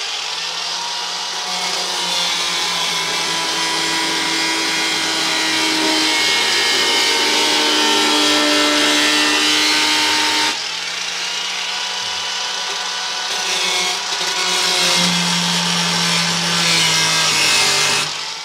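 Angle grinder with a thin cut-off disc cutting a slot through a diesel heater's sheet-metal cover, running steadily under load. Its level drops about ten seconds in, then rises again, and it stops just before the end.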